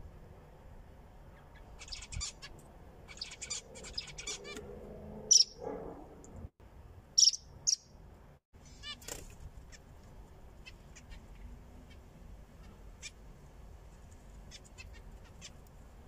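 Caged zebra finches calling: a quick run of short chirps, then a few louder single calls about five to eight seconds in, followed by scattered soft chirps.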